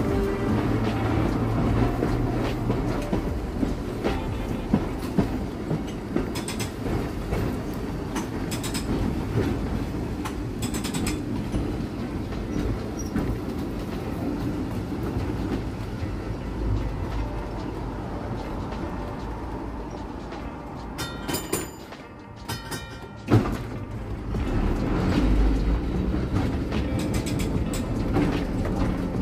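1896 Brownell streetcar rolling along its track: a steady rumble of wheels on rail with scattered clicks. It goes quieter for a moment about two-thirds of the way through, followed by a single sharp click, then the rumble picks up again.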